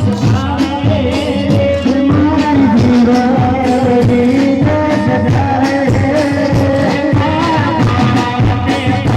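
Indian devotional folk music (a bhajan): a sustained, ornamented melodic line over a steady beat, between sung lines of the song.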